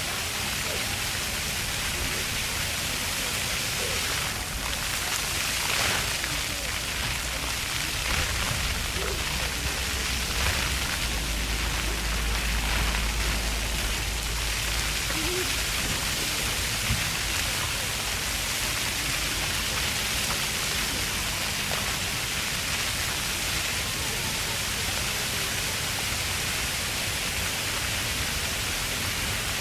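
Jets of a splash-pad ground fountain spraying and splashing water onto paving in a steady hiss, with children's voices heard faintly over it.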